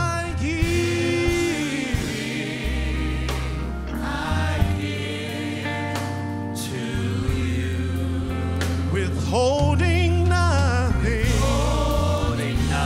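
Gospel worship song sung by a praise team and congregation, with band accompaniment holding long low bass notes under the voices.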